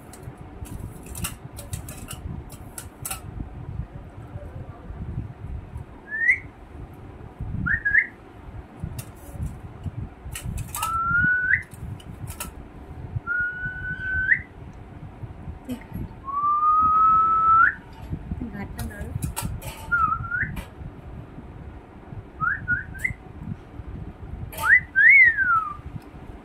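A string of about ten short, clear whistles, most held on one note and flicking upward at the end, one longer rising whistle about two-thirds through, and a final note that rises then falls. Soft clicks sound between the whistles.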